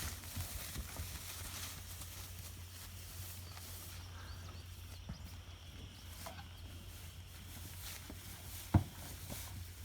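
Quiet pasture ambience among a herd of cattle: faint rustling and movement over a steady low hum, with one sharp knock near the end.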